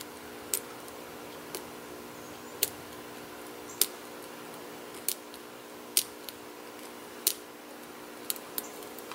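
Steel hook pick working the pin tumblers of a Marks high-security cylinder lock under tension: about a dozen small, sharp metallic clicks at irregular spacing, roughly one a second.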